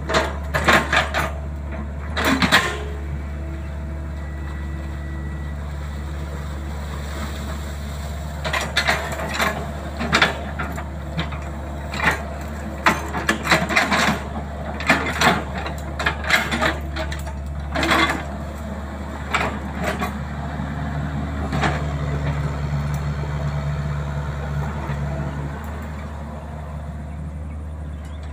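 Excavator diesel engine running steadily while the machine digs and reaches into brush in wet peat, with frequent sharp knocks and cracks. The engine works harder for a few seconds about three-quarters of the way through.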